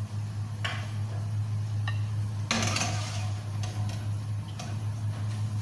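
A few light knocks and clinks of dishes and utensils being handled, the loudest about two and a half seconds in, over a steady low hum.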